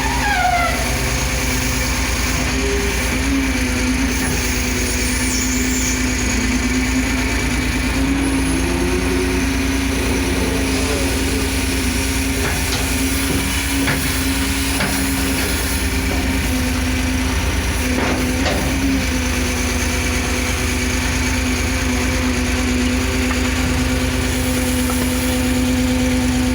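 Caterpillar 330 CL excavator's diesel engine running steadily under load, with a steady hum over it and a few short knocks in the middle.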